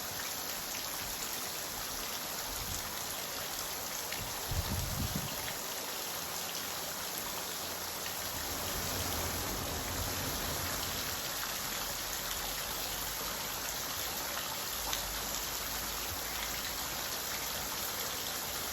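Small snowmelt waterfall splashing down a steep bank: a steady, even rush of falling water. A brief low bump comes about four and a half seconds in.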